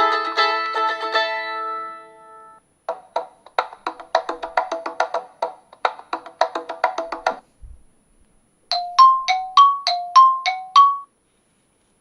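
iPhone 4 ringtones on iOS 5 playing one after another: a melody fading out, then a quick run of short dry percussive notes, then a repeated two-note chime that stops about eleven seconds in.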